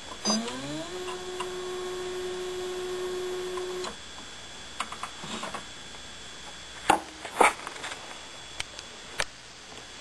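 Saeco Talea super-automatic espresso machine's internal motor whirring up in pitch and then running at a steady pitch for about three and a half seconds. After that, a few sharp knocks and clicks as the ceramic mug is lifted off the drip tray and set down.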